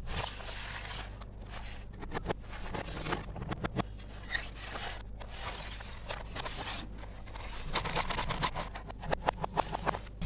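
Plastic toy pieces and packaging handled up close: scraping and rustling with quick runs of small clicks, thickest about two seconds in and again near the end.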